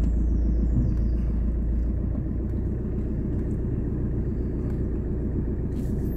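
Car's steady low rumble heard from inside the cabin, with the engine running.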